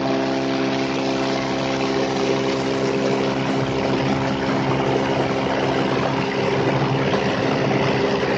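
Beechcraft S35 Bonanza's six-cylinder Continental IO-520 engine and propeller running at full takeoff power on the takeoff roll, a steady drone. A rush of air builds beneath it as the plane gathers speed.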